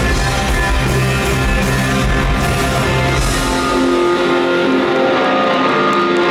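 Live band music heard from the audience: a rock arrangement with guitar and drums. A little past three seconds in, the bass and drums drop away and held chords ring on.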